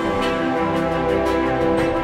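Background music: sustained chords under a steady beat.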